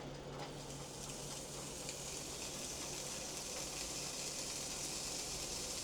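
A slice of thick-cut pork bacon frying with a steady sizzle that grows louder about two seconds in.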